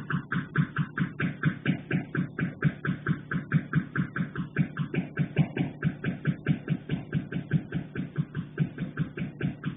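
Rapid, steady knocking on a pipe, about five sharp knocks a second, keeping an even rhythm throughout.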